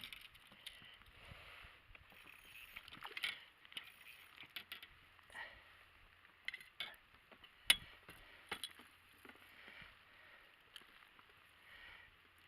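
Scattered small clicks, taps and rustles of hands working a fishing rod, line and a freshly caught perch in the boat, with one sharp click a little before eight seconds in.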